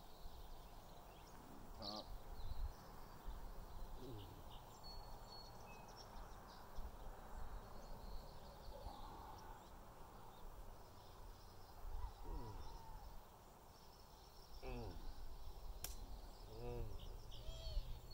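Quiet outdoor ambience: a low, uneven wind rumble on the microphone with scattered short bird calls in the distance.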